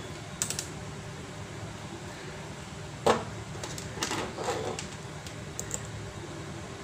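A few scattered clicks and knocks from handling an analog multimeter, the sharpest about three seconds in, over a steady low hum.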